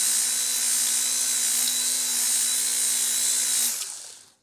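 Milwaukee M12 Fuel die grinder converted to a 1/2-inch belt band file, running at a steady high whine as its belt sands the curve of a metal pipe. Near the end it is switched off and winds down.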